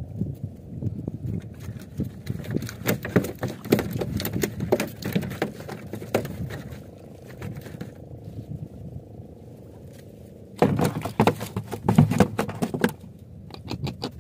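Irregular clicks and knocks of a caught giant trevally being unhooked and handled in a small fibreglass boat, over a steady low rumble. The handling goes quiet for a few seconds past the middle, then comes back as a dense burst of clatter.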